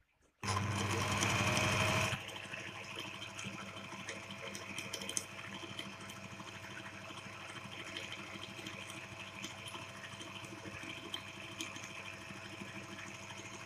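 Singer 201K electric sewing machine stitching through a piece of leather. It starts suddenly about half a second in, runs loudest for the first second and a half, then carries on steadier and quieter with a steady hum under the needle's rapid clatter.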